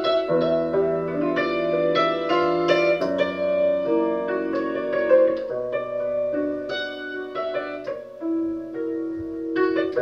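A 1987 Bohák concert cimbalom played with hammers: a steady run of struck notes ringing on into one another, dropping softer for a moment about eight seconds in before picking up again.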